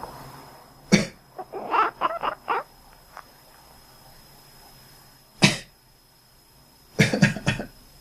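A person coughing: one cough about a second in, another about halfway, then a quick run of coughs near the end. Between them a cat answers with a run of short meows.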